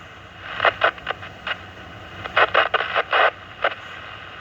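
Two-metre FM repeater audio through a radio receiver: a steady static hiss broken by short bursts of popping and crackling, with a cluster of them in the middle. This is interference getting into the repeater, which the operator likens to the receiver being desensed and suspects comes from a feed line or antenna connection.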